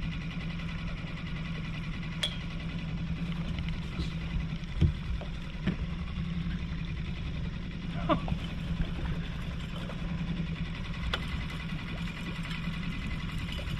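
Small outboard motor running steadily at low trolling speed, an even low hum. A few short knocks and clicks come from gear being handled on the boat, about two, five, six, eight and eleven seconds in.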